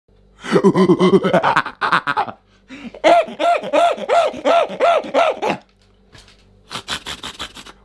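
A man's voice doing an animal impression: a quick stuttering burst of sound, then a run of about eight short, laugh-like yelps, each rising and falling in pitch. A few light clicks and knocks near the end.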